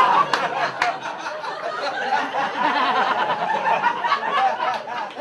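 Audience laughing and chuckling, with a few sharp claps or knocks near the start.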